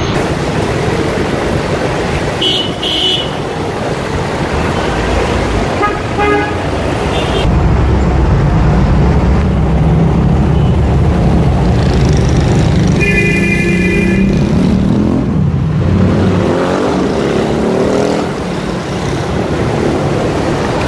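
Heavy road traffic: car, bus and motorcycle engines running close by, with several short horn toots, the clearest a second-long beep about two-thirds of the way through. Near the end motorcycle engines pass close, their pitch gliding up and down.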